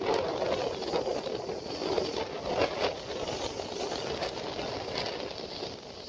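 Rough sea surf with wind: a steady rushing noise that rises and falls.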